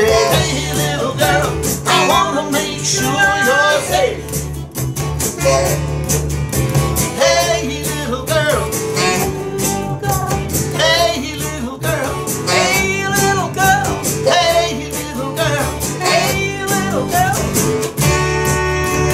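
Pop-rock song played by a duo: a voice singing over electric bass and electric guitar.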